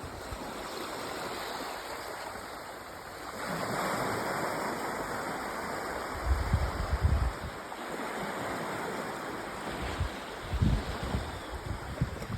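Small creek flowing, a steady rush of water, growing slightly louder a few seconds in. Short low rumbles come through around the middle and again near the end.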